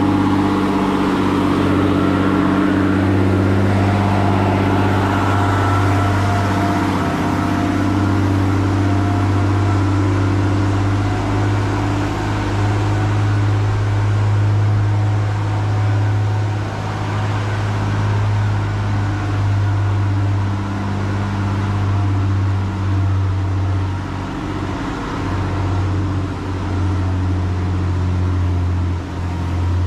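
A steady low motor hum, with a strong deep tone and a few fainter overtones above it, running unbroken and wavering a little more in the second half.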